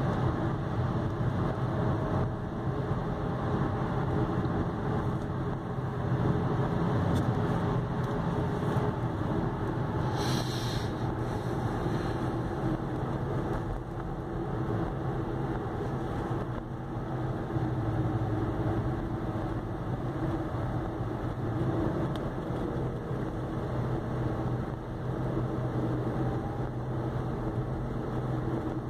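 Car engine and road noise heard inside the cabin while the car slows from about 100 to 50 km/h, the engine speed easing from about 2000 to 1000 rpm. A brief hiss comes about ten seconds in.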